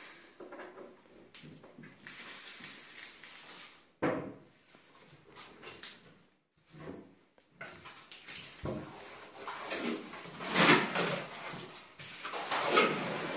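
Irregular knocks, clicks and rattles of a laminated kitchen cabinet door and its hinges being handled and fitted, with the loudest knocks near the end.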